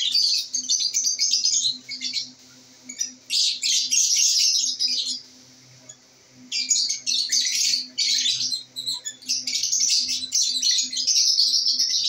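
Caged lovebirds chattering in rapid high-pitched bursts, with two short pauses about two and five seconds in.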